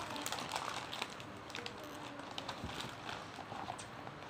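Paper leaflet and cardboard box being handled: light rustling with small, irregular taps and clicks.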